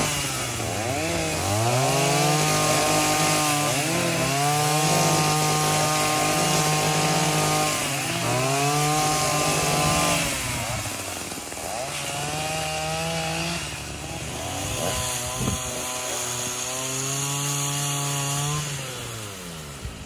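Two-stroke petrol pole saw cutting branches, its engine revving up to full throttle and falling back to idle about five times before it drops away near the end.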